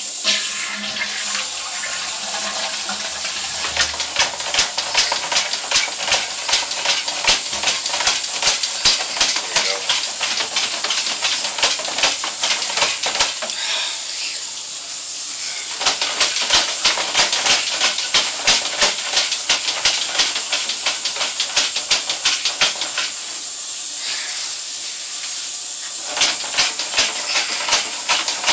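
Sewer inspection camera's push cable being fed along a 4-inch cast iron drain line: a fast run of clicks and rattles over a steady hiss. The clicking stops twice for a few seconds while the pushing pauses.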